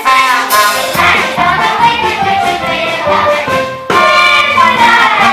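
Live theatre pit band with trumpet playing an upbeat musical-theatre number while the cast sings along, with a crash about half a second in and a fresh loud entry just before four seconds.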